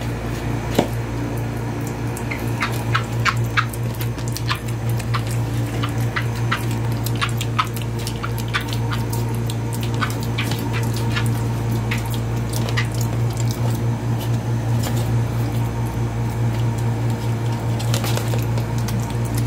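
A piglet chewing and smacking on banana, a rapid irregular run of short wet clicks, over a steady low hum.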